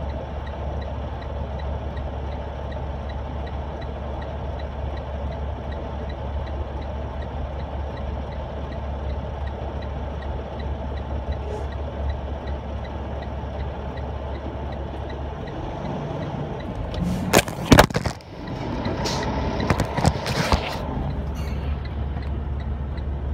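A vehicle idling with a steady low hum and a faint, regular ticking. About fifteen seconds in the hum drops away, followed by several loud knocks and clatter.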